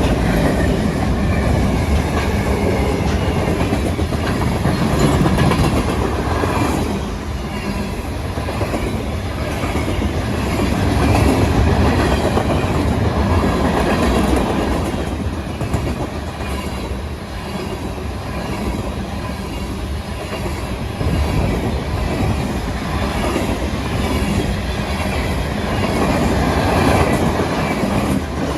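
Norfolk Southern freight train rolling past, its rail cars clattering steadily with a clickety-clack of wheels over the rail joints.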